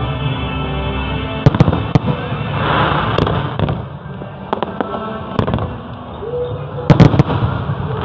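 Fireworks display: shells bursting in sharp bangs at irregular intervals, with a fizzing crackle about three seconds in and a quick cluster of the loudest bangs about seven seconds in.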